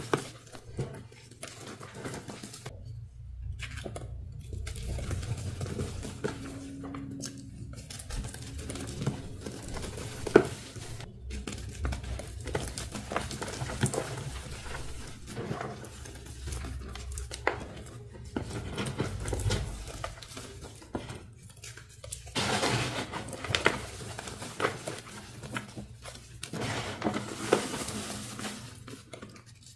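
Dyed gym chalk reforms crushed and crumbled by hand: gritty crunching and crackling as the lumps break and the powder sifts between the fingers, growing denser in the last third.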